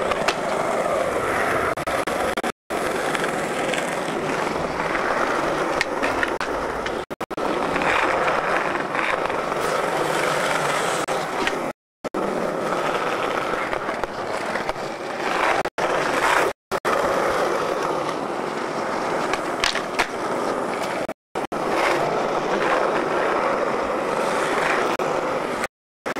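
Skateboard wheels rolling on smooth concrete, with sharp clacks from the board's tail popping and landing on the ground. The sound drops out briefly several times.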